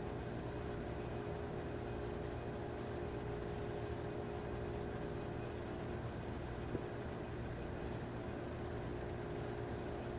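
Steady mechanical hum with faint steady tones and a constant hiss; a single faint click about seven seconds in.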